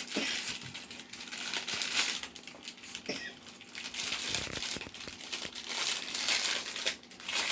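Plastic blind-bag wrapper crinkling and tearing as it is opened by hand, with irregular small crackles and rustles throughout.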